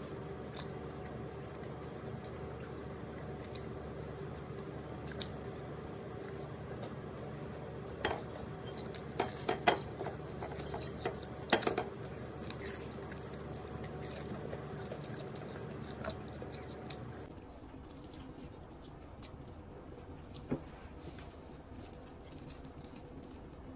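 Close-up eating of fried chicken by hand: chewing and mouth sounds, with a cluster of sharp crunches and clicks about eight to twelve seconds in. A steady background hum underneath drops away about seventeen seconds in.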